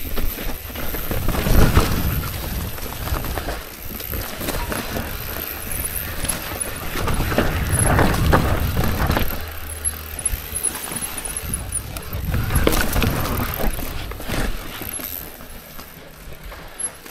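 Rocky Mountain Altitude mountain bike riding down a dirt singletrack: tyre noise on the trail and the bike rattling over bumps, with many short clatters and a steady low rumble, swelling louder and easing off several times.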